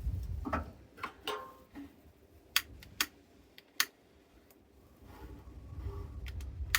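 Wind buffeting the microphone with a low rumble, dying down mid-way and rising again near the end, and a handful of sharp, irregular clicks and snaps from dry kindling being handled while a fire is being lit.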